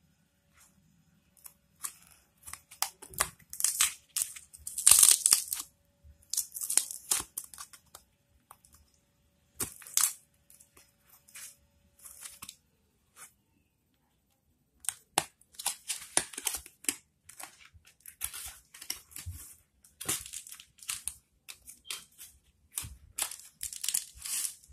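Plastic wrapping being torn and crinkled in irregular bursts, with a lull about halfway through.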